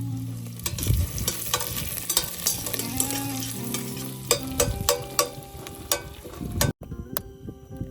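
Food frying and sizzling in a pan while it is stirred, with sharp clicks and scrapes from the utensil against the pan.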